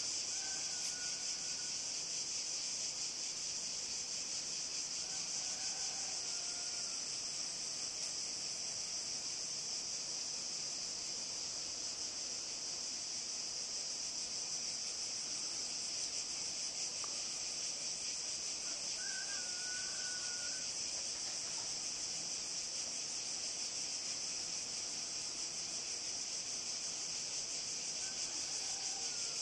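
Steady, unbroken high-pitched chorus of insects at dusk, with a few faint brief calls over it, the clearest about two-thirds of the way through.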